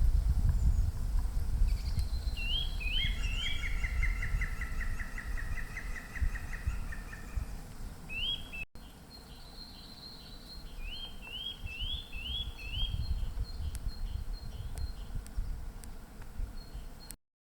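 Songbirds singing: short, rising whistled notes repeated in groups, with a fast trill in the first half, over a low background rumble. The audio breaks off briefly about halfway through.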